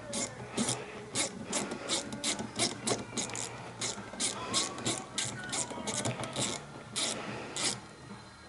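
Hand ratchet being worked in short repeated strokes, a burst of clicking about two to three times a second, with a pause about six seconds in and again near the end.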